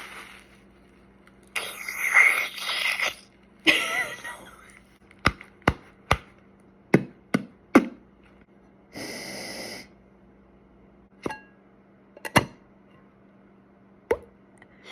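A run of short sound effects: two hissing bursts in the first few seconds, then a quick string of sharp pops and clicks, a steady hiss about nine seconds in, and a few single pops near the end.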